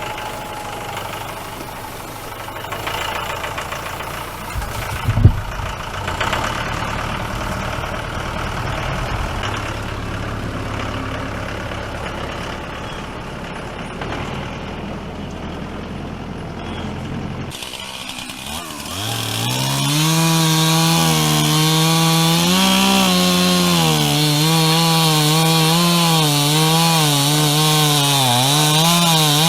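A low engine hum with a single thump about five seconds in. Then, a little past halfway, a chainsaw revs up to full throttle and cuts into the white oak, its pitch dipping and recovering under load until it stops at the end.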